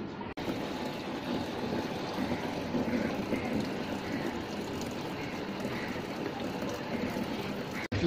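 Top-loading washing machine filling: water pours in from the inlet at the rim and splashes into the tub over the clothes, a steady rushing.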